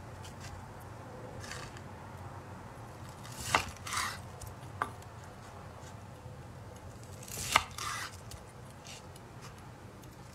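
Chef's knife cutting slices from a seared steak on a wooden cutting board: two cuts about four seconds apart, each a sharp tap of the blade followed by a short rasp, with a fainter cut earlier, over a low steady hum.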